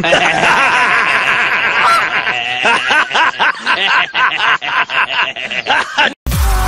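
Loud, hearty laughter that starts as a steady cackle and turns into choppy, breathless giggling from about three seconds in. It cuts off suddenly near the end.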